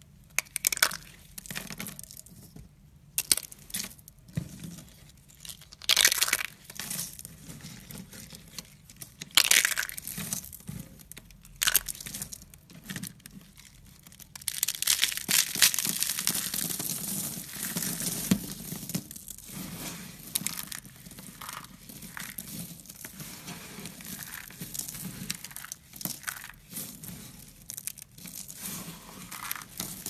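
Hands crushing a rose made of brittle curled shavings, which crack and crunch as they break into flakes. Separate sharp crackles come first, then a dense run of crunching about halfway through, then softer crackling as the loose flakes are rubbed between the palms.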